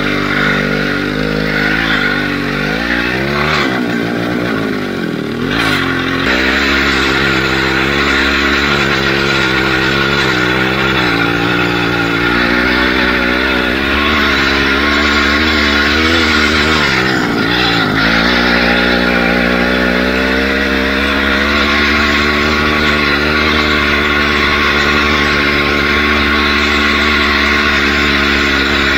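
Chainsaw engine, a small two-stroke, running as it drives an all-wheel-drive motorcycle. Its speed wavers about four to six seconds in and dips briefly near seventeen seconds; otherwise it holds a steady pitch.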